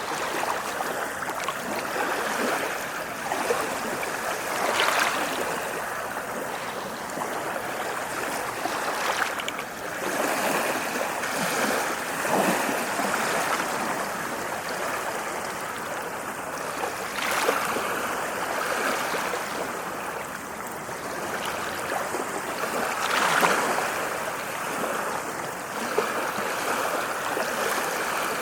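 Ocean surf washing onto a shore: a continuous rush of water with a louder surge every several seconds as a wave comes in.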